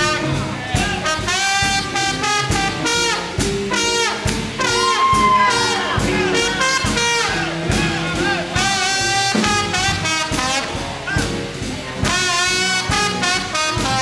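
Live big band playing a swinging blues instrumental: brass and saxophones over drums and upright bass, with a steady beat.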